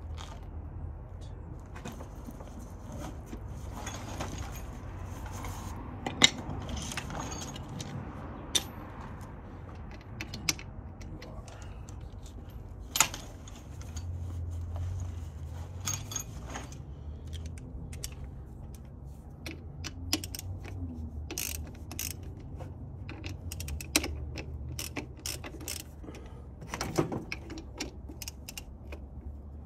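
Metal hand tools clinking and clanking in scattered sharp clicks at irregular intervals, as tools are handled in a tool bag and in the engine bay, over a steady low rumble.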